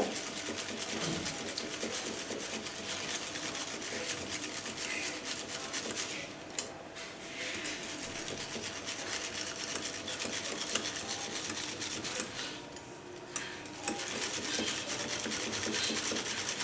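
A whisk beating a thick, creamy curd and jaggery mixture in a bowl, a rapid run of scraping, clicking strokes that pauses briefly twice.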